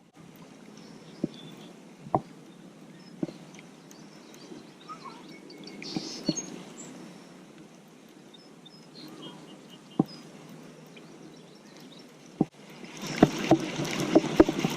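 Water sloshing and lapping, with a sharp click or knock now and then; near the end it turns louder and busier, with quick splashes and clicks.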